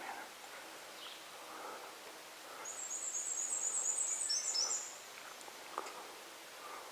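A small songbird singing a fast, very high-pitched trill lasting about two seconds, starting a little under three seconds in, over faint woodland background noise.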